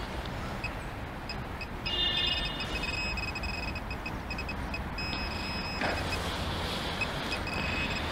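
Handheld metal-detecting pinpointer probed into sand, giving a high beeping alert in rapid pulses: once about two seconds in, and again from about five seconds on, as it picks up metal buried in the sand. A short scrape comes about six seconds in.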